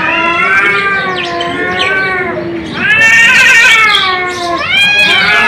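Cat yowling: long, drawn-out, wavering calls one after another, louder from about three seconds in.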